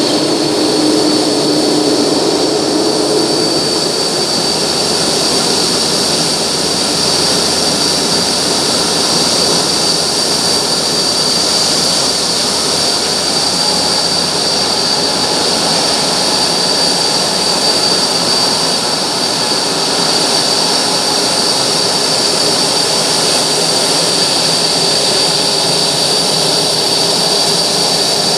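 Boeing 787-9 airliner's jet engines running, a loud steady rush with a high whine. A lower tone rises in pitch over the first few seconds, then the sound holds even.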